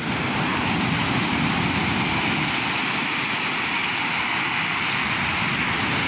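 Sea surf breaking and washing up a pebble beach: a steady, even rush of water noise.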